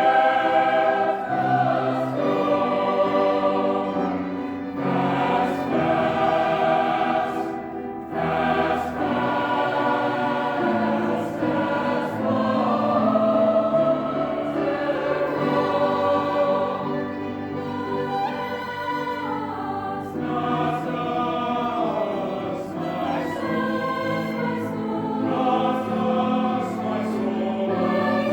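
A choir singing sustained chords.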